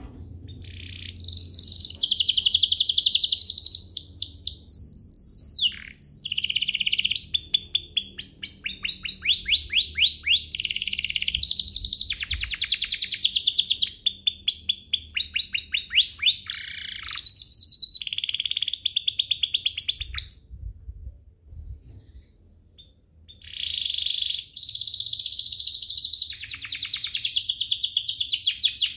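Domestic canary singing long phrases of very fast, rolling trills, high-pitched, with brief breaks between phrases and one longer pause of about three seconds about two-thirds of the way through before the song resumes.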